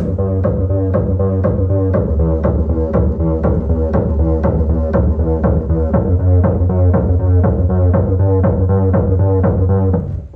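Music with heavy bass and a fast, steady beat played through a homemade pallet-wood Bluetooth subwoofer speaker; the sound dips briefly near the end.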